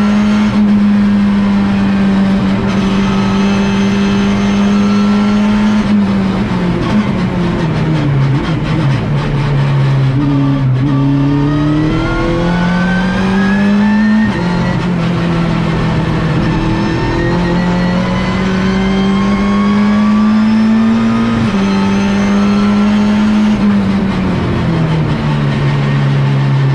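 Opel Astra TCR race car's turbocharged four-cylinder engine heard from inside the cockpit, held high in its revs, then falling in steps under braking about a quarter of the way in. It then climbs again through the gears, with a sudden drop in pitch at each gear change.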